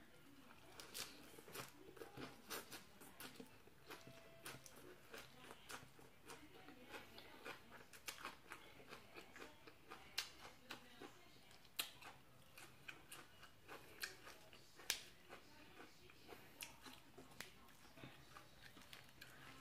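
A person chewing crisp, crunchy food close to the microphone, likely raw long beans and fresh vegetables, with many sharp, irregular crunches, a few of them much louder than the rest.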